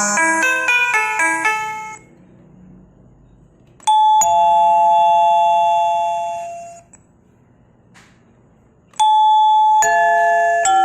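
Doorbell chimes. A quick run of melody notes ends about two seconds in. Then a two-note ding-dong, high then low, rings and fades. Near the end another ding-dong begins a new chime.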